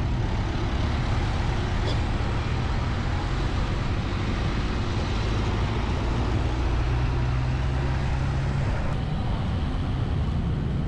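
Steady wind rush and road noise on the microphone of a riding road cyclist, with the low rumble of motor traffic on the road.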